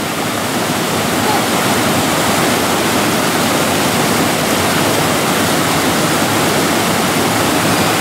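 Waterfall and river water rushing over rocks: a steady, even rush of falling water that carries on without a break.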